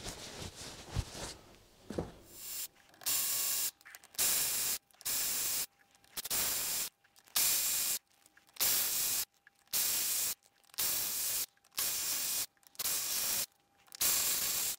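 Cordless electric ratchet running in about a dozen short bursts, each under a second with brief pauses between, as it spins out the side-cover bolts of a Royal Enfield J-series engine one after another. A few light clicks of handling come before the first burst.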